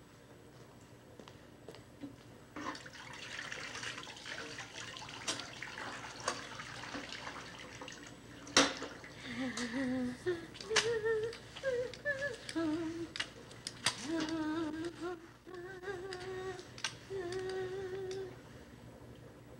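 A wet mop scrubbing across a floor with a few sharp knocks, the loudest about eight and a half seconds in. After that a woman hums a slow tune in short, wordless phrases.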